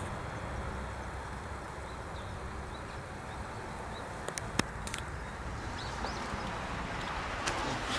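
Outdoor ambience: a low steady rumble with a few faint high chirps and two sharp clicks about four and a half seconds in. No chime music is playing.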